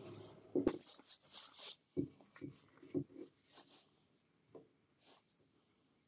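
Small wooden pieces knocking and clicking together as they are handled and fitted, with the rustle of work gloves rubbing on the wood. The loudest knock comes about half a second in, and a few lighter ones follow around two to three seconds in.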